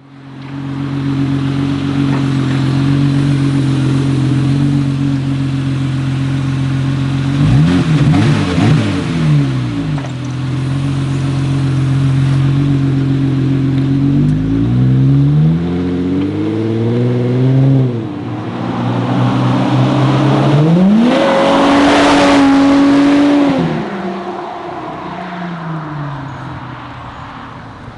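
Jeep Wrangler JL engine running with its muffler removed, open exhaust: it runs steadily, revs up and back down about eight seconds in, climbs in pitch again between about fourteen and eighteen seconds, then pulls to a higher held pitch for a couple of seconds before easing off.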